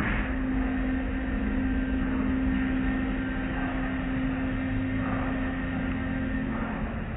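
Automatic tunnel car wash heard from inside the car: water spraying and cloth brush strips washing over the body, with a steady hum that stops near the end.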